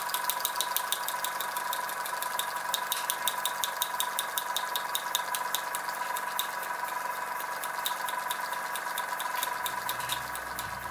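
Small home-made oscillating (wobbler) model engine running on compressed air: a rapid, even beat of exhaust puffs and clicks over a steady high hum. Music fades in near the end.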